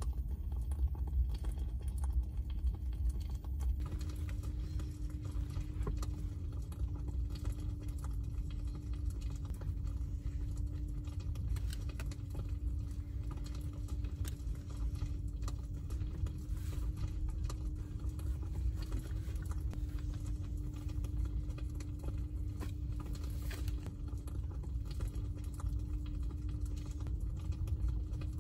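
Steady low hum of the Tesla Model X's climate system running in camping mode, with a faint constant tone in it, and light scattered tapping on top.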